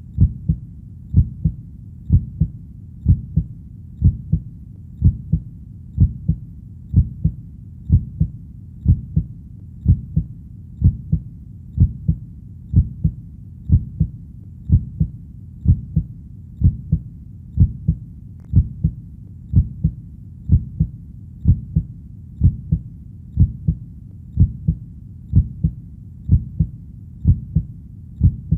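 Heartbeat playing at a steady, slow pace: paired lub-dub beats about once a second, deep and low, over a faint steady hiss.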